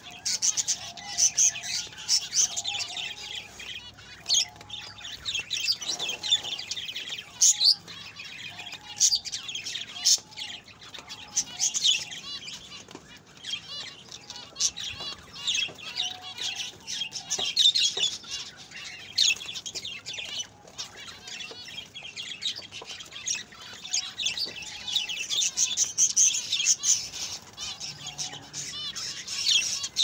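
A flock of zebra finches calling, a dense, constant chatter of short high chirps and calls, some louder than others.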